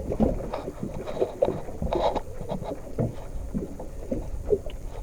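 Sounds aboard a small fishing boat: irregular knocks and clatter over a steady low rumble.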